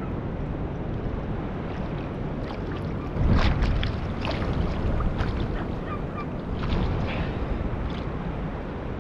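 Water sloshing and lapping with wind noise on the microphone, louder for a moment about three seconds in.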